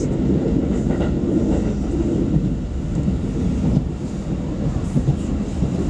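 Steady low rumble of a commuter train running at speed, heard from inside the passenger car, with a faint click of the wheels now and then.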